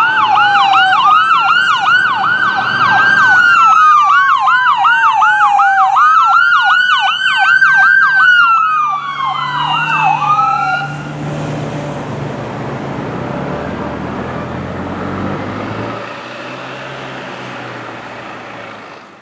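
Ambulance siren sounding two tones at once, a slow rising-and-falling wail and a fast yelp, cutting off about eleven seconds in. The ambulance's engine and road noise follow, fading near the end.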